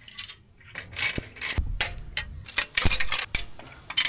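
Irregular metallic clicks and ticks of hands and tools working on a Harley-Davidson's chrome stock exhaust pipes, taking off the heat shields.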